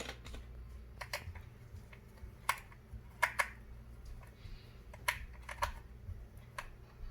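Irregular light clicks and taps of small hard plastic parts being handled, as the battery cover of a toy RC car is worked open with a small screwdriver.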